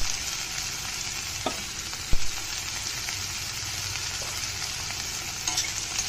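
Chopped onion, tomato and ground spices sizzling steadily in a stainless steel kadhai while the masala is fried. A steel spatula knocks sharply against the pan about two seconds in, and stirring brings a few light clinks near the end.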